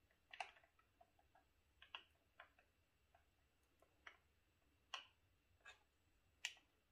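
Wooden stirring stick clicking and scraping against a small ribbed plastic cup as coloured epoxy resin is scraped out of it: about eight faint, irregular clicks over near silence.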